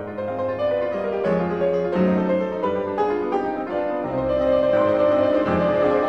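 Instrumental background music led by a keyboard instrument playing sustained notes and chords.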